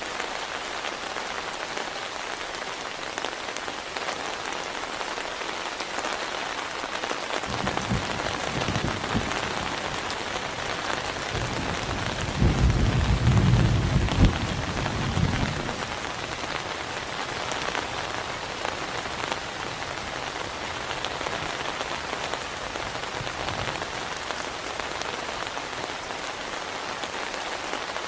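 Heavy rain falling steadily. A low rumble of thunder builds about a quarter of the way in, is loudest around the middle, and dies away a little after.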